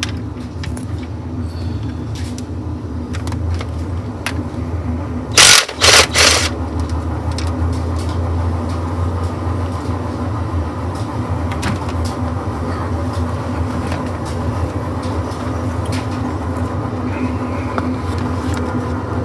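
A steady low mechanical hum. About five and a half seconds in come three short, loud bursts of noise in quick succession.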